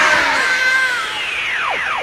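Cartoon fight sound effects: a high held cry-like tone that sags and fades about a second in, then several quick falling whistles overlapping near the end.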